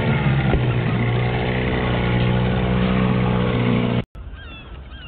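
Johnson outboard motor running at a steady speed, pushing an inflatable boat along. About four seconds in it cuts off abruptly, and a bird calls several times in quick succession over quieter background noise.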